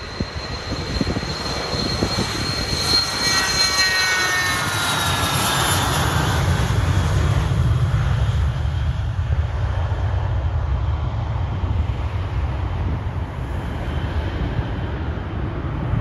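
Twin-turbofan business jet taking off at full power. A high engine whine falls in pitch as the jet rolls past, then gives way to a steady low rumble as it lifts off and climbs away.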